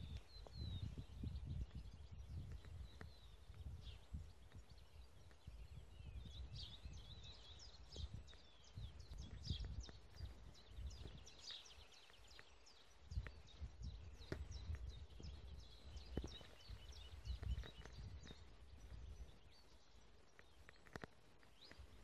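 Small birds chirping and calling, with many short high notes and, around the middle, a quick run of even trilled notes. A low, uneven rumble sits underneath.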